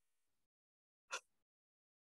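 Near silence, with one brief soft noise about a second in.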